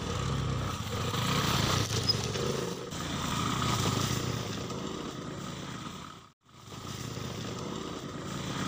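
Motor scooter engine running steadily with a fast, even beat, briefly rising and falling in level. It drops out for a moment about six seconds in, then carries on.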